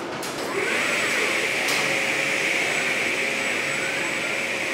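Car assembly-line machinery noise: a steady high hiss sets in under a second in and holds, over a faint steady hum, with faint whines rising and falling and a couple of light clicks.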